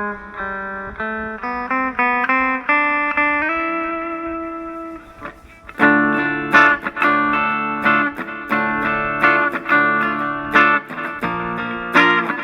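Epiphone Les Paul 100 electric guitar played on the clean channel of an Aroma TG-08 mini amplifier: a picked single-note, arpeggio-like line with one held note, then, after a short pause about five seconds in, louder strummed chords.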